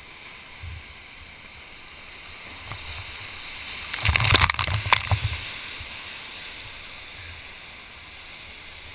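Whitewater rapid rushing steadily around a kayak. About four seconds in, a loud burst of splashing with low thumps lasts over a second as the boat drops through the rapid and spray washes over the camera.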